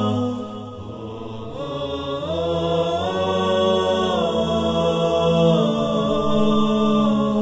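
A cappella vocal intro music: layered voices hold long, chant-like notes together, moving up and down in steps every second or so.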